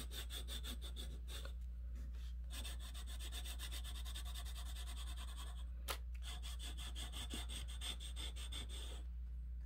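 Thick sidewalk chalk scrubbed back and forth on paper in rapid strokes, colouring in a shape. There is a short pause about two seconds in, and the scratching stops near the end.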